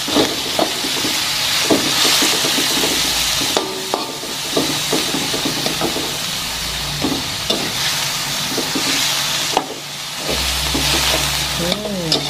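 Ground beef and ground beef tendon sizzling in a hot wok, stirred and scraped by a metal spatula, with frequent short scrapes and clicks of metal on the pan over a steady sizzle.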